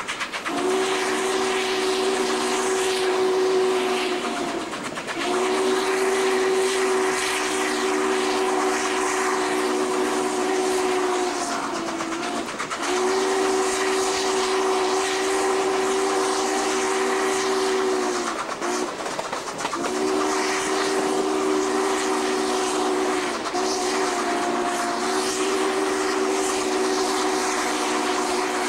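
Norfolk & Western 611's steam whistle sounding a chord in about five long blasts with short breaks, the last two almost run together, over the running noise of the locomotive at speed.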